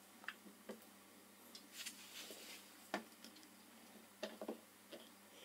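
Faint, scattered clicks and taps of a small cast-iron bench vise being handled and a short piece of copper pipe set between its steel jaws, with one sharper knock about three seconds in.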